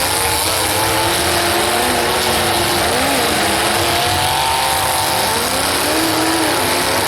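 Several demolition derby car engines revving, their pitch rising and falling and overlapping one another over a steady loud noise.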